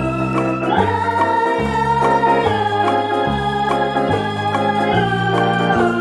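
Background music: sustained organ-like keyboard chords over a bass line that changes note about once a second, with a soft steady beat.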